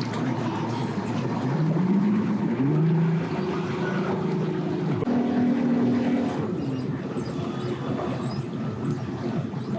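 Boat engine revving up about a second and a half in, holding a steady pitch, then dropping to a lower pitch around five seconds and easing off about a second later, over constant background noise.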